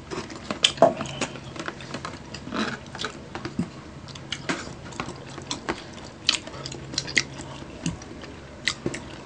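Close-miked eating sounds: irregular mouth smacks and chewing clicks, with light clicking of a plastic spoon and plastic food containers.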